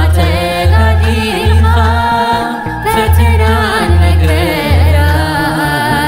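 Tigrinya Orthodox hymn (mezmur) sung by a woman over a steady low drum beat, about one beat every 0.8 seconds.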